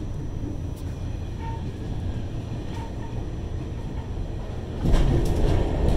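Subway train running through a tunnel, heard from inside the car: a steady low rumble of wheels on rails with a few faint clicks. About five seconds in, the rumble suddenly grows louder, with sharper rail clicks.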